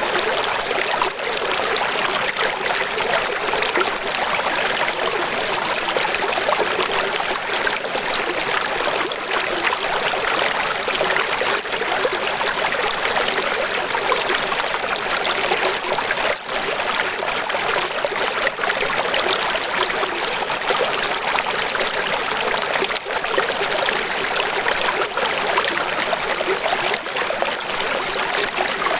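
Steady, unbroken rush of falling water, like a waterfall or heavy rain, bright and hissy with almost no low rumble.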